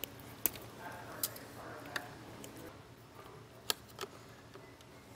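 Small hand tool and fingers working a thin red wire: about six short, sharp clicks spread through, with faint rustling between.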